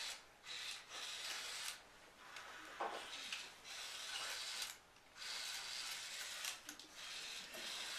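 Small electric motor and plastic gears of a toy backhoe whirring and grinding in runs of a second or two, stopping and starting several times as it is driven back and forth.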